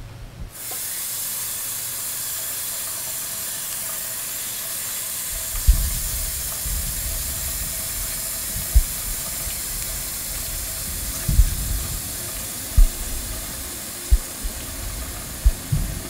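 A single-lever bathroom faucet is turned on about half a second in, and water runs steadily from the tap into the sink basin. From about five seconds in, low dull thumps come every second or two.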